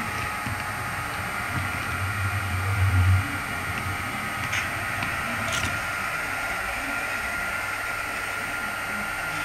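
Model diesel locomotives running on an HO-scale layout, a steady hum and hiss. A deeper hum swells about two seconds in and fades, and two faint clicks follow near the middle.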